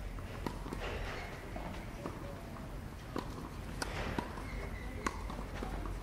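Tennis ball on a clay court: a few sharp, irregularly spaced pops of ball on racket and court, the loudest about two-thirds of the way through, over steady outdoor background noise.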